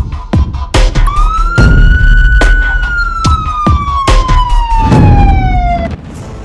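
Police car siren: one long wail that rises briefly and then falls slowly before cutting off, over a run of heavy booming hits.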